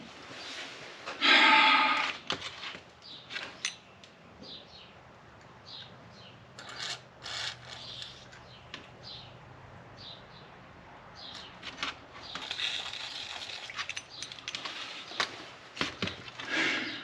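Hand work on a stuck screw in a rusty turn signal: rubbing and scraping with scattered clicks, and a short louder burst about a second in.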